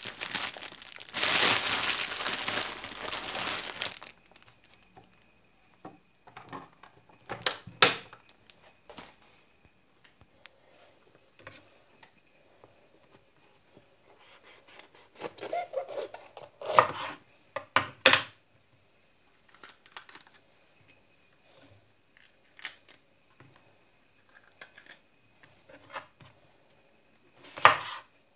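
Crinkling, tearing noise for the first few seconds, then the sparse knocks and scrapes of a kitchen knife cutting a green bell pepper on a wooden cutting board, with a few sharp chops against the board.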